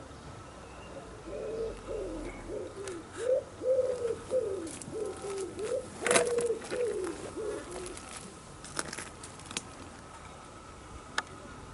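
A pigeon cooing: a run of repeated coos that starts about a second in and lasts roughly six seconds, with a few sharp clicks scattered through.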